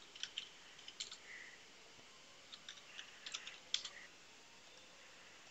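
Computer keyboard typing: faint, scattered keystrokes in small irregular clusters.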